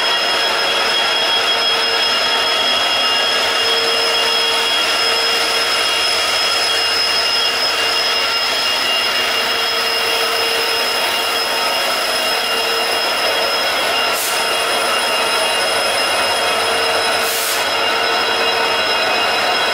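WDP4D diesel locomotive idling at a standstill: a steady, loud engine and machinery drone with a high-pitched whine held on top. Two brief hisses come near the end.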